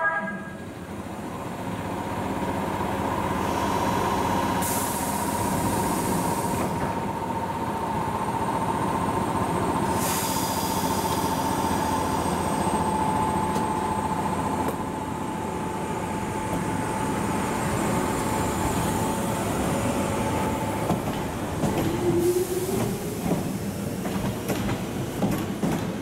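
Toyama Chiho Railway 10030-series electric train standing at the platform with a steady hum from its equipment, with two bursts of hiss. About 22 seconds in it pulls away: a rising motor tone and irregular clatter of wheels over the track.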